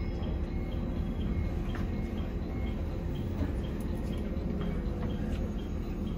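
JR East E721 series electric train running, heard from inside the car: a steady low rumble of wheels and running gear with a few sharp clicks. Faint short high chirps repeat about every two-thirds of a second.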